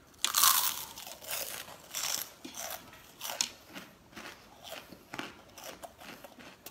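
A loud crunching bite into a crisp, spiral-cut fried snack on a skewer, then steady crunchy chewing at about two crunches a second that gradually gets quieter. The crunch is the sound of a very crisp, hard-fried pastry that crackles under the teeth.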